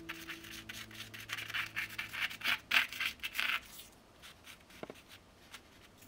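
Stick of hazel charcoal scratching across rough handmade paper in quick, repeated hatching strokes. The strokes are dense and loudest in the first three and a half seconds, then give way to a few faint ticks.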